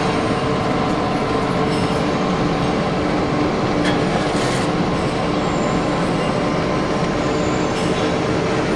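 A 400-model wood pellet mill running under load, a loud steady mechanical drone with a constant hum, as it presses wood material into pellets. A few brief clatters come about four seconds in and again near the end.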